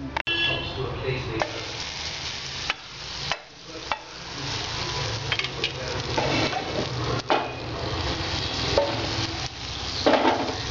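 A metal utensil clinking and scraping in a steel bowl while tossing boiled noodles, then, after about three seconds, butter sizzling steadily in a frying pan with a few small pops.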